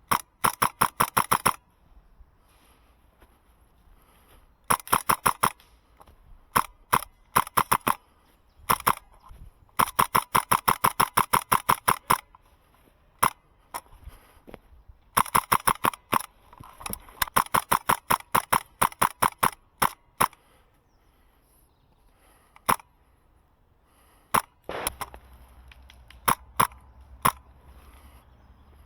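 HPA-powered MK12 airsoft rifle firing: sharp pops, some in rapid strings of about seven shots a second and others as single shots or short runs.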